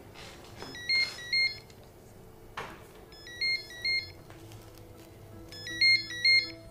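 Cordless phone ringing: three short double rings about two and a half seconds apart, each a high electronic trill.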